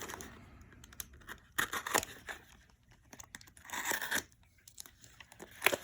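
Plastic packaging being cut and torn open, with crinkling, in a few short bursts.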